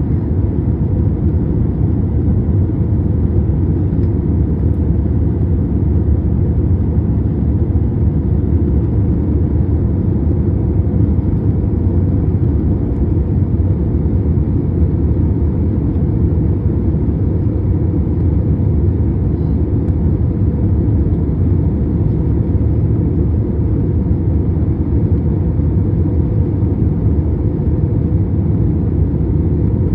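Airbus A321 cabin noise from a window seat over the wing: the engines and rushing air make a steady low rumble during the climb after takeoff.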